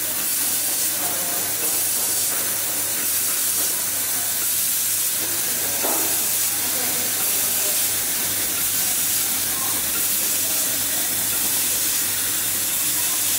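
Automated laser welding machine seaming a stainless-steel pillow-plate heat-exchanger panel: a steady hiss, mostly high-pitched, over a low constant hum.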